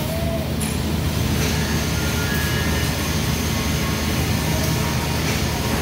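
TIG welding arc on a 4-inch carbon steel pipe, a steady hiss over a low, even hum from the welding setup.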